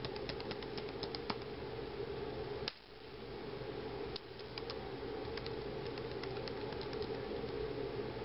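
Keys being pressed one after another on a Dell Inspiron 1525 laptop's newly fitted replacement keyboard, typed along each row to check that every key works. The clicks come in two runs, one at the start and another from about four seconds in, with a single louder click between them, over a steady low hum.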